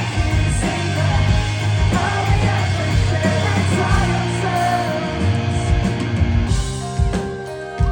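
Live pop-punk band playing loud: distorted electric guitars, bass and drums with a sung, partly shouted lead vocal. Near the end the full wall of sound thins out to sparser separate drum hits.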